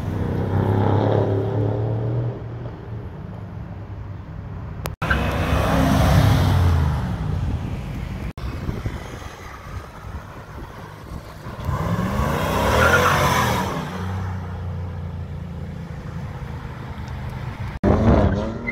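Cars with loud exhausts accelerating past one at a time, in a few short cuts; each pass swells and fades as the engine note bends. The loudest passes come about a second in, around six seconds in, and around thirteen seconds in.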